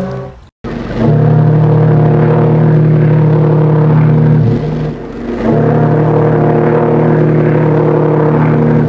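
Steam whistle of the ocean liner RMS Olympic, a chime whistle sounding several steady tones at once, blown in two long blasts of about four seconds each with a short break between them.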